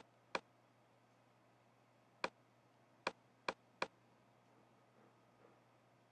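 Computer mouse clicking six times, sharp and separate: two close together at the start, one about two seconds in, then three quick ones a little after three seconds, over quiet room tone.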